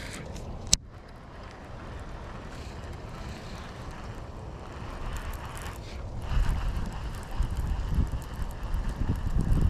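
Wind buffeting the microphone, a low rumble that grows stronger and gustier in the second half, with one sharp click just under a second in.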